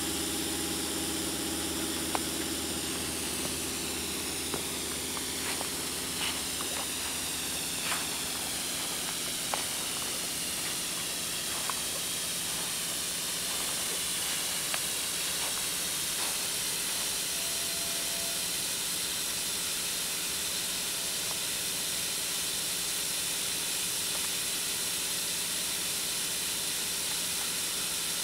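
Homemade backyard snow gun hissing steadily as it sprays compressed air and high-pressure water through its nucleator and fan nozzles, making snow. A low hum sits under the hiss in the first few seconds.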